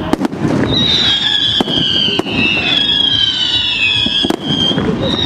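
Aerial fireworks display: several high whistles overlapping, each slowly falling in pitch, cut through by about five sharp bangs.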